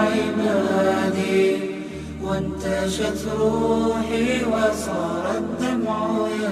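Background vocal music: a chanted, nasheed-style song with long held, gliding notes over a low steady hum.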